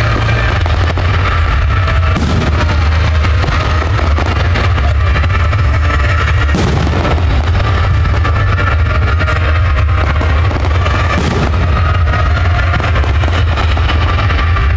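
Fireworks going off: three sharp bangs a few seconds apart, over a loud steady low rumble, with faint music underneath.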